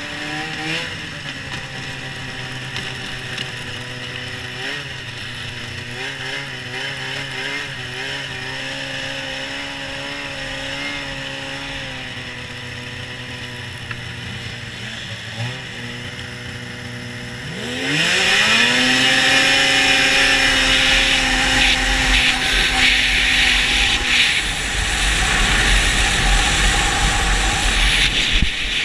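Two-stroke Polaris snowmobile engine running at low, steady speed, then about two-thirds of the way through the throttle is opened: the engine rises sharply in pitch and the sled accelerates hard, the engine now loud under heavy wind and track noise.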